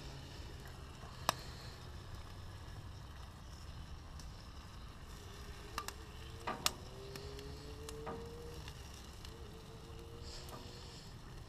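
Glazed pig snouts sizzling faintly on hot gas-grill grates, with a few sharp clicks of the basting brush and fork against the grates: one about a second in, and a cluster between about six and eight seconds in.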